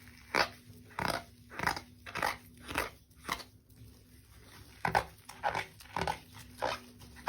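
Freshly shampooed wet dog coat squeaking under rubbing fingers: about eleven short squeaks in two runs with a pause in the middle. The squeak is the sign of a thoroughly washed, clean coat.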